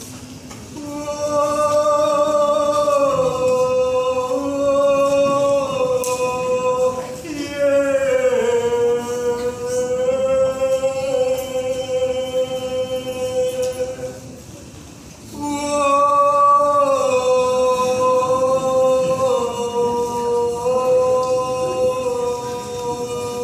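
A single voice singing long, drawn-out notes, each held for seconds with slow slides in pitch, as a sung opening to a poetry recitation. The singing comes in phrases, with a short pause about two-thirds of the way through.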